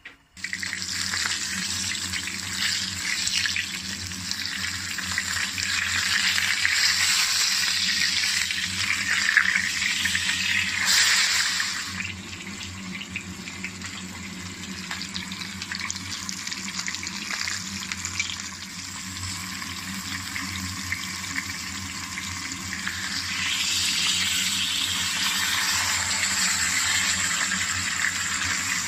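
Whole sea bream frying in hot oil in a pan: a steady sizzling hiss that eases off about halfway and swells again near the end, over a low steady hum.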